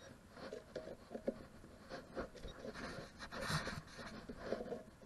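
Faint, irregular scratching and rustling of dry soil and grass being worked by hand at a small dug hole, with a few soft knocks.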